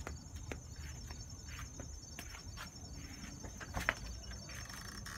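Insects trilling in a steady, high, finely pulsing chorus, with scattered light ticks and one sharp click about four seconds in as the front door's knob and latch are worked.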